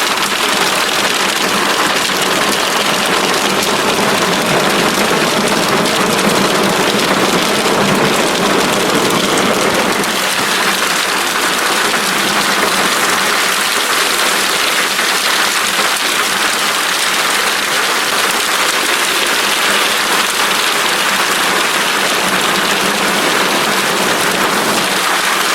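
Heavy thunderstorm rain pouring down in a loud, steady hiss that does not let up.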